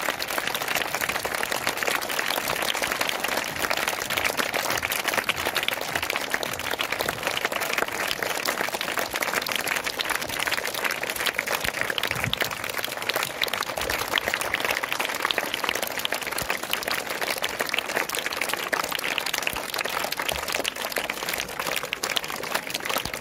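Many schoolchildren clapping their hands together in steady, continuous applause.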